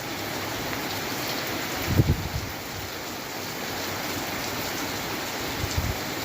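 Steady rain falling, with a low buffeting gust of wind on the microphone about two seconds in, the loudest moment, and a smaller one near the end.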